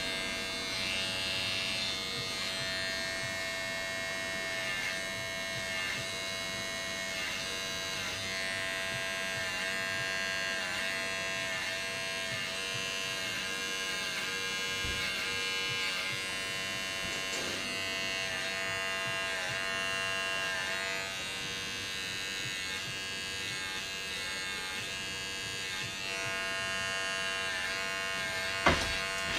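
Andis Slimline Pro cordless trimmer running with a steady high buzz. Its pitch dips briefly about once a second as the blade meets hair while lining up a haircut. A single sharp knock comes near the end.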